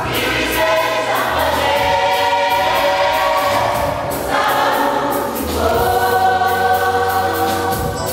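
Church choir singing a gospel song, many voices in harmony with long held notes.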